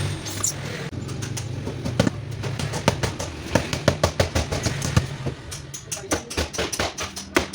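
A quick, irregular series of sharp knocks and taps, several a second, over a low steady hum.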